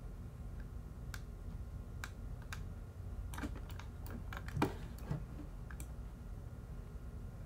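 Irregular clicks and taps from a computer keyboard and mouse, about a dozen, the loudest a little past halfway, over a faint steady low hum.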